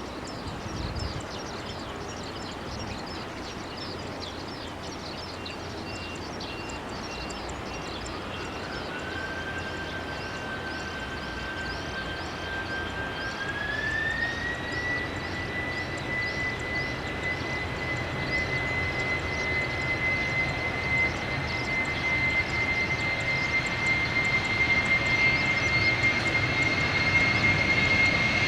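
Jet airliner engines running, growing steadily louder. A whine comes in about eight seconds in, rises in pitch a few seconds later and then holds steady, as the engines spool up.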